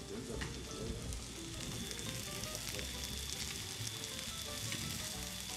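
Sliced mushrooms sizzling in a hot frying pan, a steady hiss with a fine, constant crackle.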